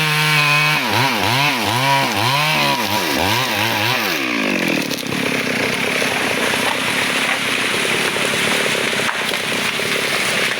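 Two-stroke chainsaw cutting teak wood, its engine pitch swinging up and down about twice a second as the throttle pulses in the cut. About halfway through the pitch falls away to a lower, rougher running with a hiss of noise.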